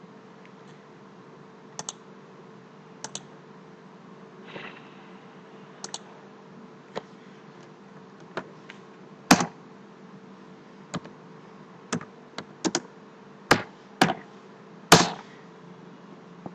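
Scattered clicks of a computer mouse and keyboard, including a few quick double clicks early on and louder single clicks in the second half, over a faint steady hum.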